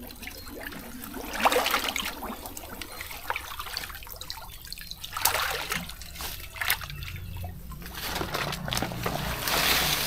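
Water trickling and splashing, with louder splashes about a second and a half in, about five seconds in and near the end.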